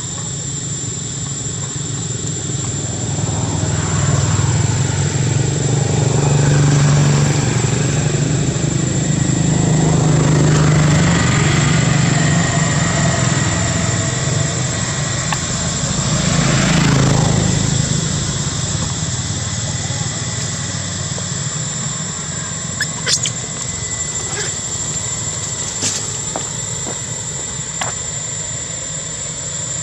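A motor vehicle engine running nearby: it grows louder a few seconds in, swells again about two-thirds of the way through as it passes, then fades. A steady thin high-pitched tone runs underneath, and a few sharp clicks come near the end.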